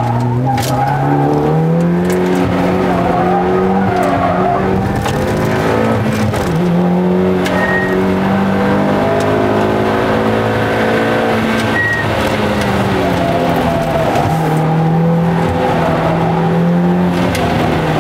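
Mitsubishi Lancer Evolution IX's turbocharged 2.0-litre four-cylinder engine heard from inside the cabin under hard driving, the revs climbing, holding and dropping again several times. Three short, high chirps are heard along the way.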